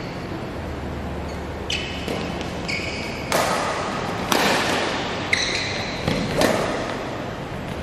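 Badminton rally: rackets striking a shuttlecock in quick exchanges, about seven sharp hits starting a couple of seconds in, with short squeaks of shoes on the court floor between them, echoing in a large hall.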